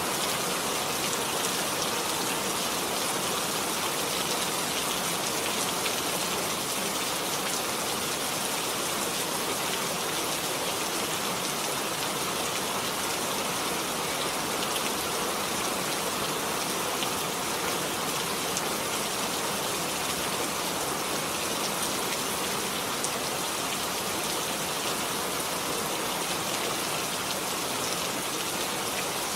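Steady rainfall with a continuous hiss of drops on surfaces and a few individual drop ticks.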